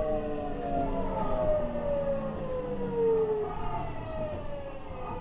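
Nagoya Municipal Subway 3050 series electric train's inverter and traction motors whining in several tones that fall steadily in pitch as the train slows under braking, over the rumble of the wheels on the rails.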